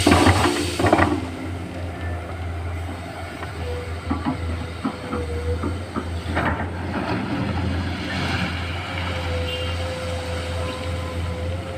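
Komatsu PC210 hydraulic excavator at work: its diesel engine runs steadily under a whine that wavers in pitch. Metallic clanks come in the first second and again about six and a half seconds in.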